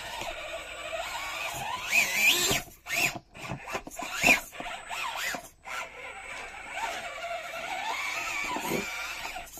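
Micro RC rock crawler's small electric motor and geared drivetrain whining, the pitch rising and falling with the throttle as it climbs wet rocks, cutting out briefly several times between about two and a half and six seconds in.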